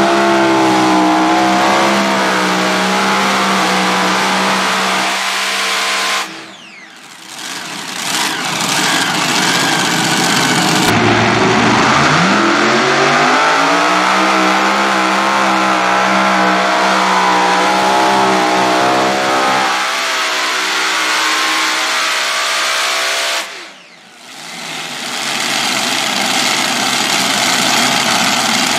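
Multi-engine, supercharged super modified pulling tractors running at full throttle under load. The engine sound drops away sharply about a quarter of the way in and again near the end, and a new run's engines climb in pitch in between.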